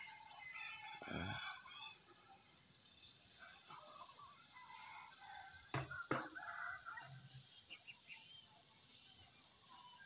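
Quiet open-air ambience: birds chirping and insects calling in faint repeated high notes. Two short soft knocks come about six seconds in.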